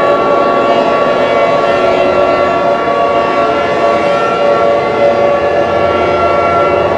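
Loud, steady siren-like sound made of several held tones sounding together.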